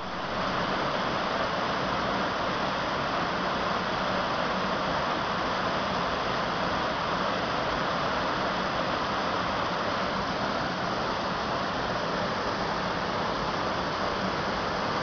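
Waterfall with water pouring and splashing in a steady, unbroken rush.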